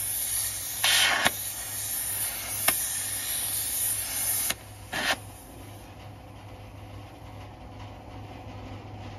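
Oxy-fuel gas torch hissing as its flame heats a truck wheel hub, with a louder rushing surge about a second in. The hiss cuts off about four and a half seconds in, followed by a short burst of rushing just after.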